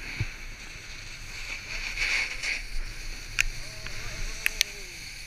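Snowboard sliding through snow with a steady hiss, swelling to a louder scrape about two seconds in. A few sharp clicks come near the end.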